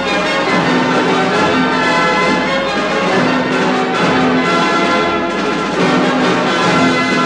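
Orchestral background music with brass and bell-like tones, held notes changing about once a second.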